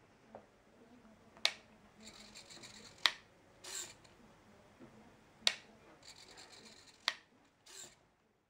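Shannon 'useless machine' running two cycles. A toggle switch clicks on, a small 5V hobby servo whirs for about a second and a half as its arm swings out, and the arm flips the switch back off with a second click. The servo then whirs briefly as the arm retracts.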